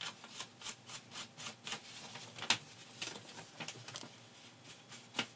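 Ink brush scuffed and dabbed along the edges of a paper envelope: quick, irregular brushy scrapes about two a second, one sharper stroke about halfway through, with light paper rustling as the envelope is handled.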